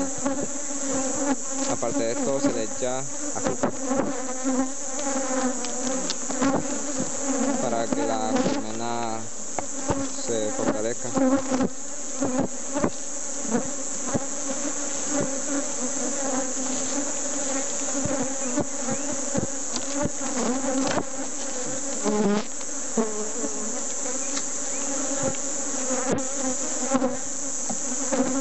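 Honeybees buzzing in a steady hum around an opened wooden hive, with frequent sharp clicks and knocks as the frames are worked with a hive tool. The buzz wavers up and down in pitch about eight seconds in.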